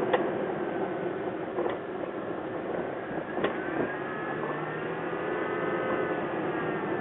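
Sharp pops from a lifted second-generation Toyota Tacoma's suspension, three of them about a second and a half apart, over steady vehicle noise. The popping comes from a 3-inch lift with Old Man Emu coils and aftermarket upper control arms, and its cause is unknown to the owner.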